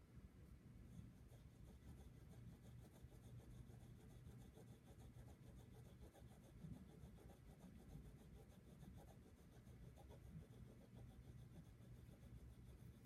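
Faint, continuous rubbing and scratching of a Prismacolor Premier colored pencil shading on paper.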